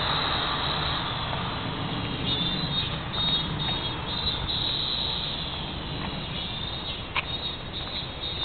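Outdoor ambience: a passing vehicle fades out at the start, then a high insect buzz comes and goes over a low steady rumble, with a sharp click about seven seconds in.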